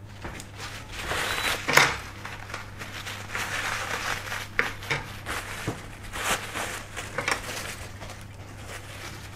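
Paper towel rubbing and crinkling against a graphics card's circuit board as old heat paste is wiped off the GPU chip, in irregular scrubbing strokes with a sharp click about two seconds in.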